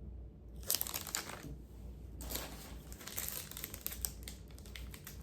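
Packaging crinkling and rustling in two spells, with small clicks, as a pin is unwrapped by hand.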